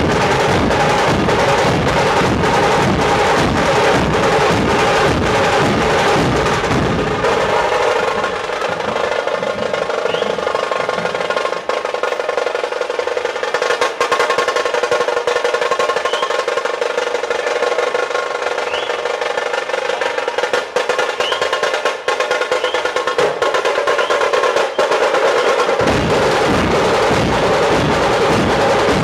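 Dhol-tasha ensemble: large barrel dhols beaten together with the fast rolling of tashas, a dense, loud drumming. About a quarter of the way in the deep dhol beats drop out, leaving the tashas' rapid roll, and the dhols come back in near the end.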